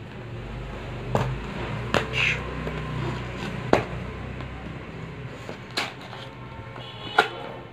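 A small knife slitting the seal of a cardboard phone box, with scraping and about half a dozen sharp clicks and snaps as the blade catches on the card.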